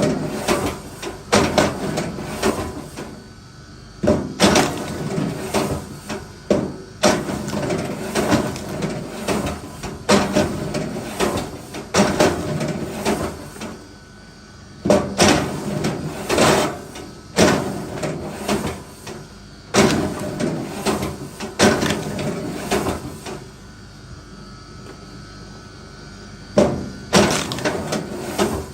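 Repeated hard wooden knocks and clatters of firewood being worked, one every second or so, with a few short pauses between bouts.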